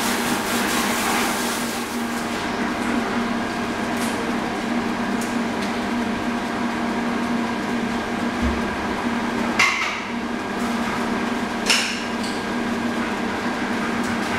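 Steady machine hum with a constant low tone, such as pool pump machinery, under a hiss that fades out about two seconds in. Two sharp knocks sound about ten and twelve seconds in.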